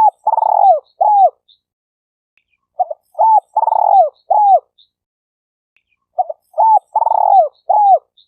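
Spotted dove (tekukur) cooing: the same phrase, a short coo or two, a long rolling coo and a falling coo, repeats about every three seconds.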